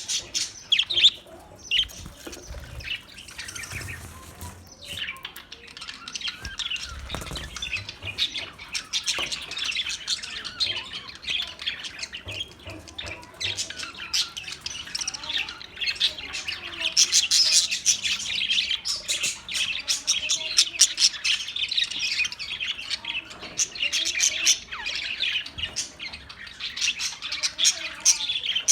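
A flock of Australian parrots chattering continuously, a dense mix of chirps and squawks that never lets up.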